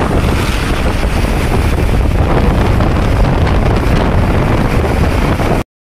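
Wind buffeting the microphone in a steady, loud low rumble, over the noise of street traffic.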